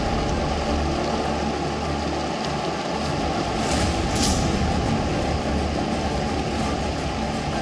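Floodwater of a swollen mountain river rushing past: a loud, steady rush of churning muddy water with a deep rumble underneath.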